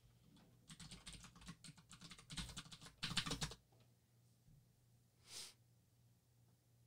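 Computer keyboard typing: a rapid run of keystrokes lasting about three seconds, heaviest near its end, then a short soft hiss about five seconds in.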